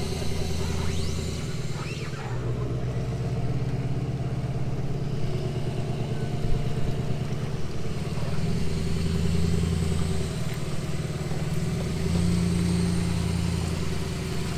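Suzuki outboard motor running at low throttle while power-loading the boat onto its trailer, the engine note rising and easing back a few times.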